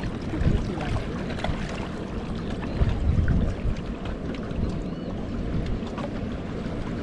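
Wind buffeting the microphone in an uneven low rumble, with water lapping against shoreline rocks.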